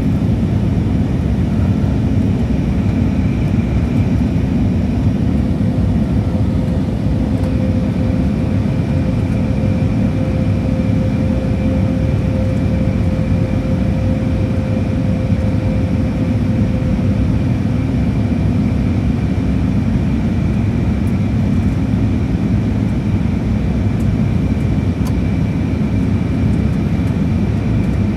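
Steady cabin noise of an Airbus A320neo airliner in descent: a low rumble of airflow and engines. A faint high whine holds throughout, and a fainter mid-pitched tone comes in a few seconds in and fades out past the middle.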